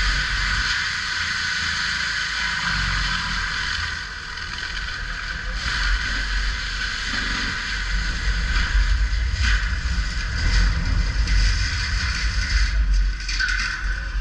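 Caterpillar 299D3 compact track loader's diesel engine running steadily at working speed, with a few short clanks from the machine.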